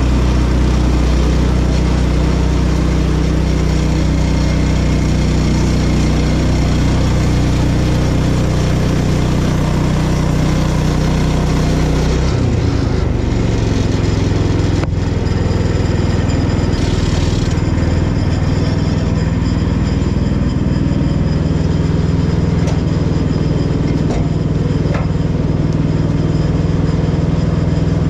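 Woodland Mills portable band sawmill's gas engine running under load as the band blade cuts through a small cherry log. About twelve seconds in the cut ends and the engine note changes, and the engine then keeps running steadily, with a few short knocks near the end.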